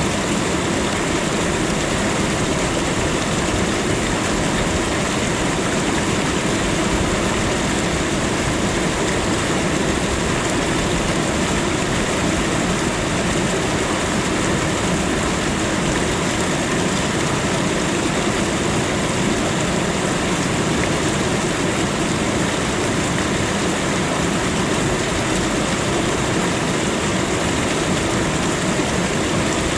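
Waterfall: a continuous, steady rush of falling water.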